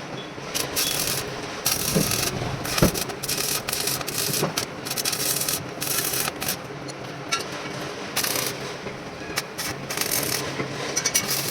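Rasping, scraping metalwork noise on steel angle, coming in irregular stretches with a few sharp knocks.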